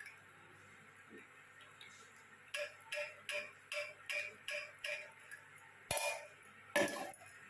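A spoon clinking against a cup, about seven light ringing strikes in a quick even rhythm, followed by two louder knocks.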